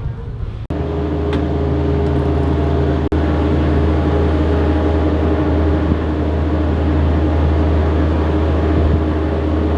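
Steady low mechanical hum, like an engine running, that starts abruptly about a second in and drops out for an instant around three seconds in.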